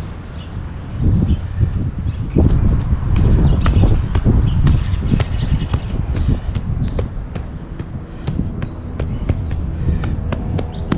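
Wind buffeting the microphone in gusts, with scrapes and taps of soil being pushed back into a freshly dug hole and pressed down.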